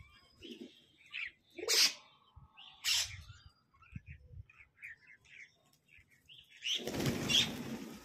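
Parrots calling: short chirps and two louder harsh screeches in the first half, then scattered softer chirps. Near the end comes a louder burst of rustling noise.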